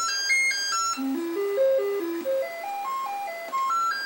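Commodore 64 SID sound chip playing the diagnostic cartridge's sound test: quick stepped notes, each a fraction of a second, falling down a scale and then climbing back up. The owner calls this SID glitchy and suspects it of crashing the machine.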